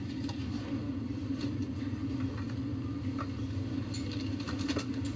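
A steady low hum with a few light clicks and knocks scattered through it.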